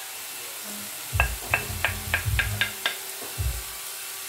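Wooden spoon knocking and scraping spices off a plate into a frying pan: a quick run of about seven sharp taps over two seconds, a little over two a second, with a couple of dull thumps. Onions frying in olive oil give a faint steady sizzle underneath.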